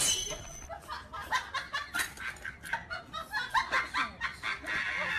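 Human laughter in quick, short bursts.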